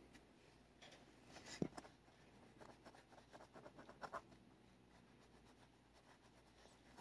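Near silence with faint rustling and scratching as a thick leather work glove strokes and rubs a cat's fur, a little louder about a second and a half in and again around four seconds.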